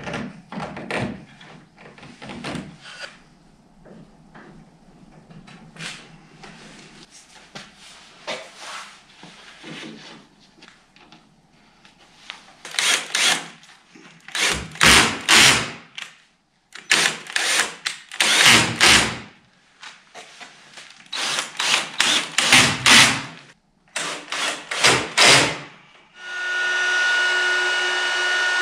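Woodworking on the boat's chine stringers: scattered knocks and tool handling, then groups of short, loud, scraping strokes. About 26 seconds in, a power tool's motor starts and runs steadily with a constant whine.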